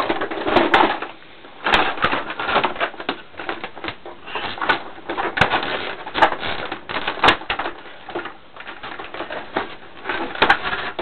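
Screwdriver clicking and rattling as screws are backed out of the plastic top cover of a Hoover WindTunnel upright vacuum, with irregular sharp clicks and plastic knocks.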